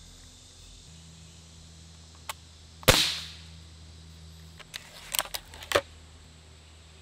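.22 caliber break-barrel air rifle firing once, a sharp crack about three seconds in that fades quickly. Near the end, a run of light clicks and clacks as the barrel is broken open and cocked.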